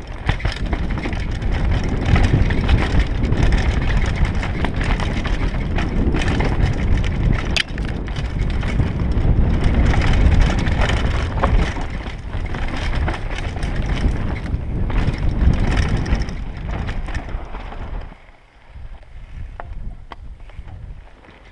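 Mountain bike descending a rough dirt trail: tyres rumbling over dirt and roots, with the bike rattling and knocking over bumps and wind rushing over the microphone. Near the end the noise drops away as the bike slows almost to a stop.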